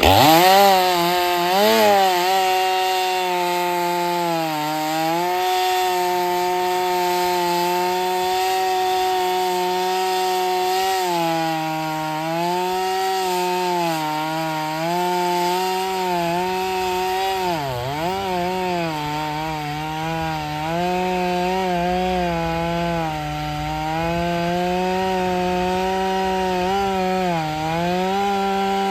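Stihl MS 500i two-stroke chainsaw revving up at the start, then held at high revs cutting firewood. Its pitch sags under load several times, most deeply a little past halfway.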